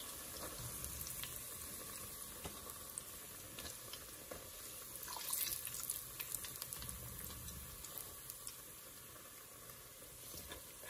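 Flour-battered cauliflower pieces frying in hot olive oil: a steady sizzle with scattered crackles and pops, and a brief louder burst of crackling about five seconds in.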